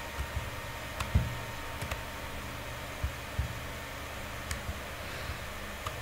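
Scattered computer mouse clicks and a couple of light desk knocks over a steady room hiss.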